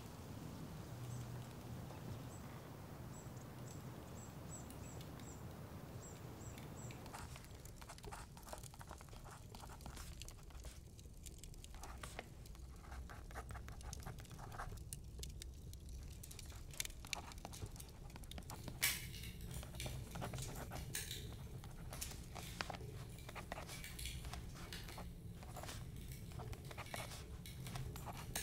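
A steady low hum with a few faint high chirps. From about seven seconds in, a pen scratches and taps across the paper of a journal in irregular strokes, with one sharper click partway through.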